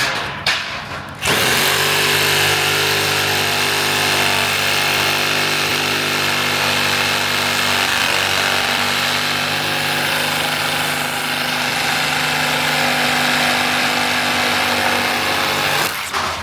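Power saw cutting through the shade structure's frame, running steadily for about fourteen seconds before it stops. A couple of short knocks come just before it starts.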